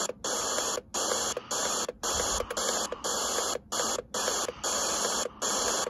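FM static hiss from a Borne portable radio's speaker, tuned between stations. The hiss cuts out briefly about every half second to second as the tuning steps up the band.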